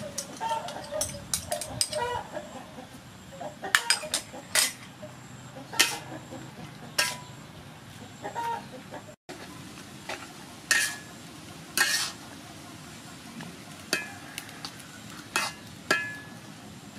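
Metal spatula clanking and scraping against an aluminium wok as beef and greens are stir-fried, a dozen or so separate sharp knocks over a steady sizzle.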